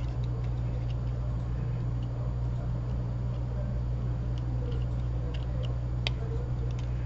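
Steady low electrical hum with a scattering of faint, sharp clicks, most of them in the second half, typical of small phone parts and tools being handled during reassembly of an iPhone 6 Plus.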